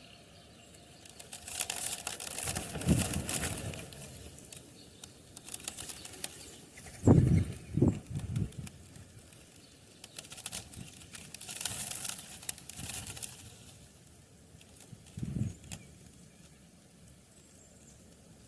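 Several bursts of birds' wings fluttering and rustling, each lasting a second or more, with a few short low thumps in between, two of them close together near the middle.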